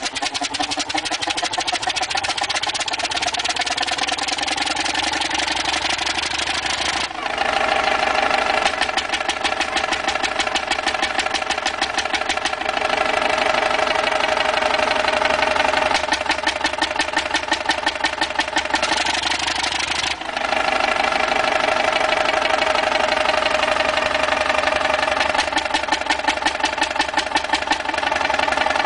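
Huge antique stationary multi-cylinder engine with a large flywheel running steadily, with a rapid, even firing beat and exhaust. The tone of the sound shifts abruptly twice.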